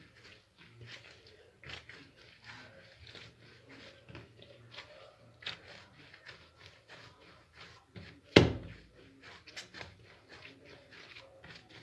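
Dough being kneaded by hand on a countertop: soft repeated patting, pressing and rubbing sounds, with one loud thump about eight seconds in.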